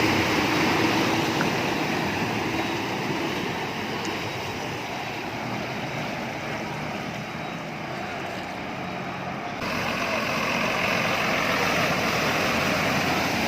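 Bus on the move: steady engine and road noise with a rushing hiss. It eases a little in the middle and comes back abruptly about ten seconds in.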